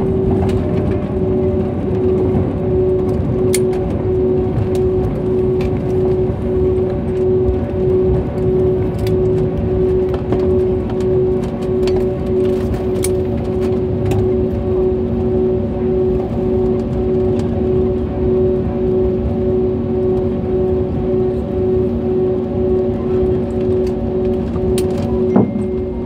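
Cabin noise inside an Airbus A320 rolling out on the runway after landing: a steady rumble of engines and airframe with a steady hum running through it, and a few light clicks and rattles.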